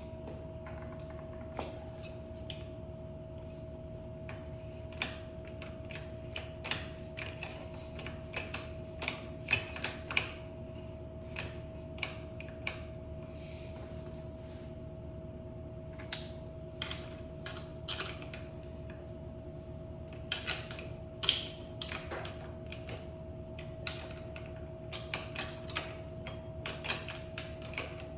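Irregular sharp clicks and taps of hand tools and small metal parts being handled, coming in clusters over a steady electrical hum.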